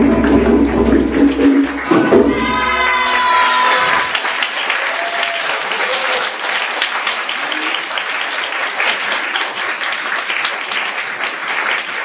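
Live band playing yosakoi dance music stops about two seconds in. Voices call out, and the audience then applauds.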